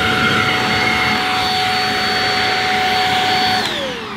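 Shark Rocket HV292 corded handheld vacuum's single-speed 500-watt motor running with a steady whine at a noise level that is not that excessive. About three and a half seconds in it cuts out, and its pitch falls as the motor winds down.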